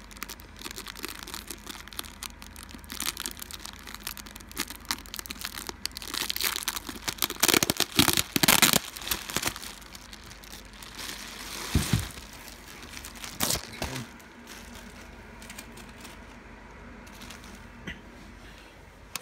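Plastic bubble wrap crinkling and packing tape being picked and torn off as hands unwrap a telescope tube, loudest about seven to nine seconds in. A dull thump comes about twelve seconds in, and the rustling is quieter near the end.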